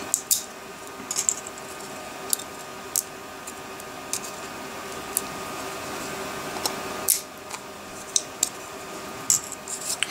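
Small flush cutters snipping and snapping ABS support material off a 3D-printed figurine: scattered sharp clicks at irregular intervals, over a steady background hum.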